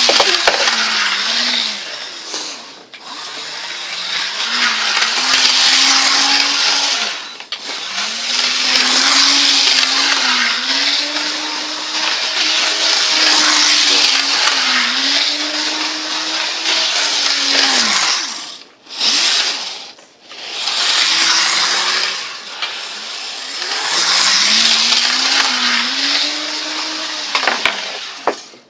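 Model electric train running around the track with a cleaning pad dragged along the rails. A loud scraping hiss rides over the locomotive motor's hum, which rises and falls in pitch. The sound cuts out briefly a few times.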